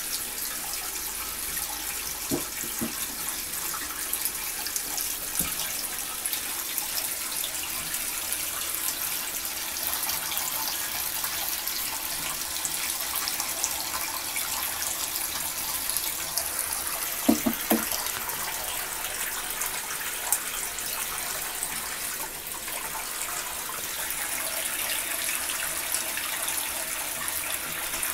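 Bathtub tap running a steady stream onto the tub floor by the drain, splashing. A couple of brief thumps, about two seconds in and again past the middle.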